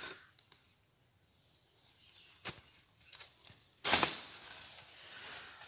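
A hoe swung into grass and bush to clear it: a faint knock about halfway, then one loud, sudden swishing rustle of vegetation just before the end that trails off over a second.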